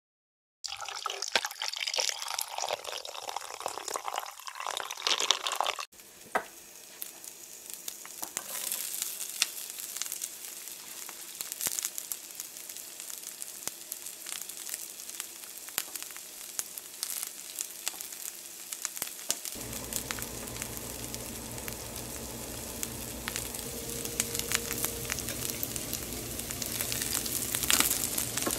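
Oil sizzling and crackling in a pan as sliced garlic and dried chilies fry; a low steady hum joins about two-thirds of the way through. At the start come a few seconds of louder liquid pouring and clinking onto saffron threads in a stone mortar.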